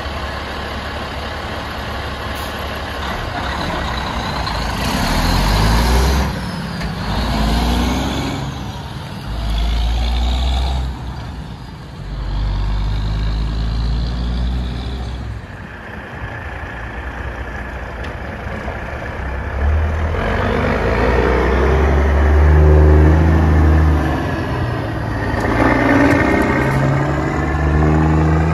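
Loud straight-piped diesel of a Peterbilt dump truck pulling away, its exhaust note climbing and dropping back through several gear shifts in the first half. From about 20 s, a second loud diesel semi tractor pulling a livestock trailer accelerates past, its pitch rising again.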